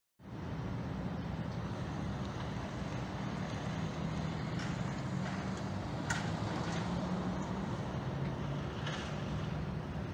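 Steady outdoor traffic ambience: a continuous low engine and road hum, with a brief sharp click about six seconds in.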